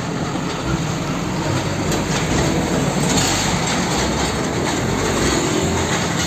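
Steady traffic noise of a car-carrier truck with an empty trailer driving past on a road: engine rumble and tyre noise.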